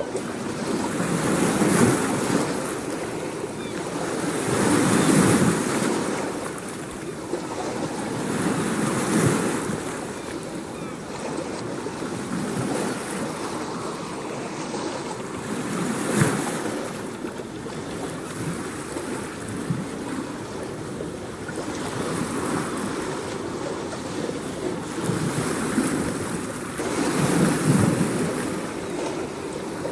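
Ocean surf: waves breaking and washing in, the sound swelling and falling back every few seconds.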